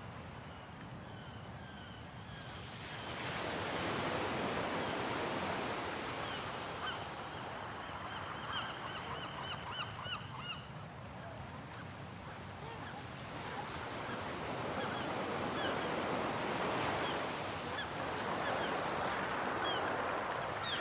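Ocean waves washing on the shore, swelling twice and easing back, with birds calling over the surf, including a quick run of short calls midway.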